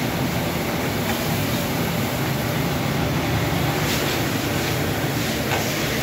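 Industrial silicone washing machine running steadily, its motor-driven tank churning material in water, with water from a hose; a couple of faint knocks about four and five and a half seconds in.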